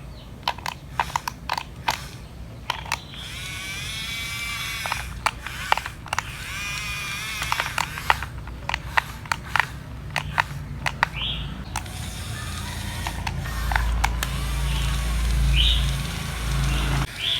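Small electric motors and plastic gears of toy vehicles whirring, the pitch wavering, amid many sharp clicks; a low rumble swells about 14 seconds in.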